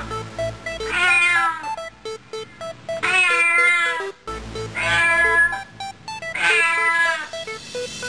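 Cat meowing: four long meows, each falling in pitch, about two seconds apart, over a simple repeating plinking melody with a low beat.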